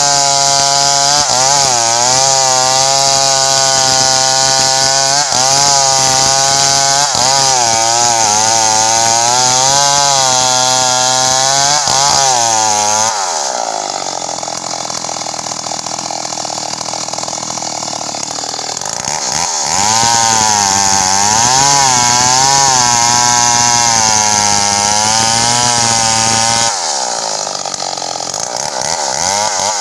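Stihl MS 381 two-stroke chainsaw cutting into the base of a kapok tree trunk, the engine pitch wavering under load. About 13 seconds in the saw eases off for several seconds and gets quieter, then bites in again, and eases off once more near the end.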